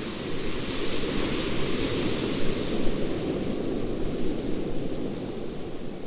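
Surf breaking and washing up a pebble beach: a steady rush that swells a little after the start and eases near the end.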